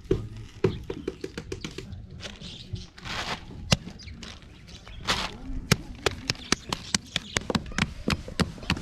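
A rapid, irregular series of sharp knocks and taps, with a couple of brief swishing noises.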